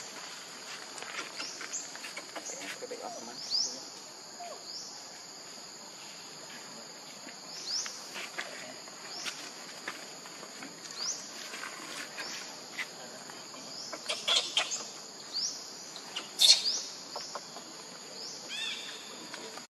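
Insects droning steadily at a high pitch, with short rising chirps repeating about once a second. A few sharp clicks sound near the end.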